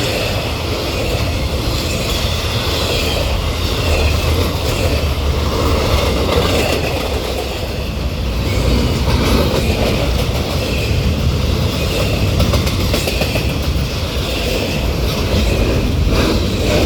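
Norfolk Southern freight train's cars rolling past at speed, a steady loud rumble and rush of wheels on rail.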